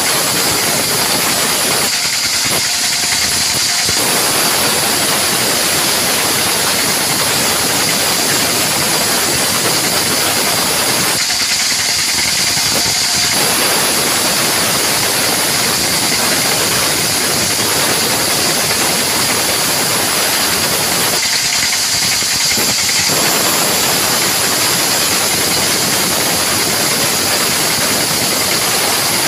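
Sawmill band saw running and sawing mahogany timber, a steady high whine over a loud rushing cutting noise. The rushing noise thins out for about two seconds three times, roughly every ten seconds.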